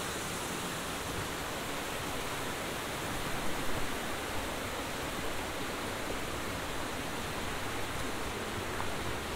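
Steady rush of a rocky mountain stream flowing through a gorge below the trail, with a few light footsteps on leaf litter a few seconds in.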